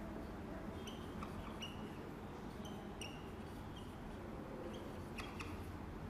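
Whiteboard marker squeaking in a series of short strokes as words are written, over a faint steady low hum.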